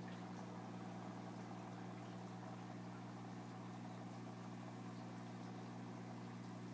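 Steady low machine hum with a faint hiss behind it, unchanging throughout.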